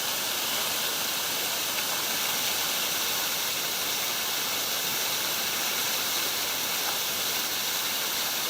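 Ironbark Falls, a small cascading creek waterfall, giving a steady rush of falling water. It is running at a modest flow, short of the full flow it would have after more rain.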